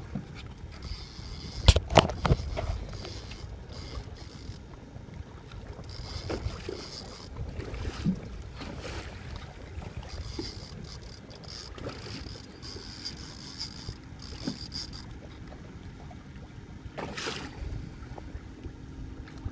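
Wind buffeting the microphone and water lapping around a small boat, with two sharp knocks about two seconds in and a few fainter knocks later.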